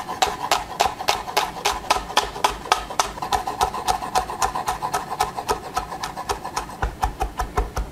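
Kitchen knife chopping fast on a wooden cutting board, about five or six even strokes a second, slicing shallot and mincing garlic. The knocks on the board get heavier near the end.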